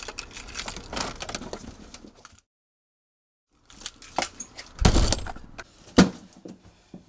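Rustling and handling noises from clothing, which cut out entirely for about a second, then a cluster of heavy thumps and a single sharp knock.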